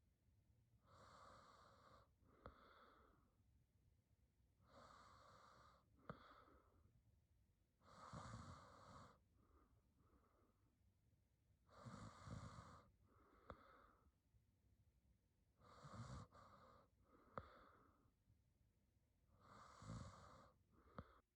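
A sleeping woman's quiet breathing with a soft snore, slow breaths about every four seconds, each a longer breath followed by a shorter one. Faint sharp clicks come now and then.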